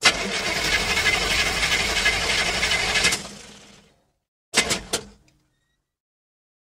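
A machine-like mechanical noise starts suddenly, runs about three seconds and fades away; a second later come three quick sharp clicks.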